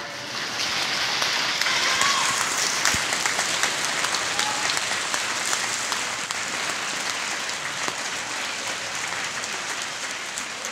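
Theatre audience applauding, breaking out at once and easing off slowly.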